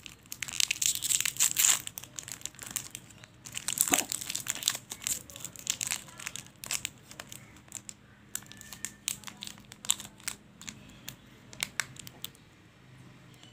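Cadbury Perk wafer-bar wrapper and its inner foil crinkling and tearing as it is unwrapped by hand. The crackling is dense for the first few seconds, with one sharp rip about four seconds in, then thins out to scattered crackles and stops near the end.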